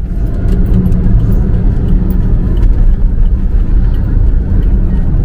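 A car driving along a road, heard from inside the cabin: a steady low rumble of engine and tyre noise.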